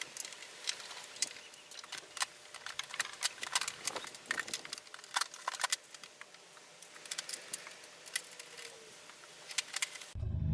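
Irregular small clicks and metallic taps of a screwdriver on the grab-rail bolts and the metal rail being handled while it is fitted to a Vespa Sprint scooter. Just before the end, a low rumble of music swells in.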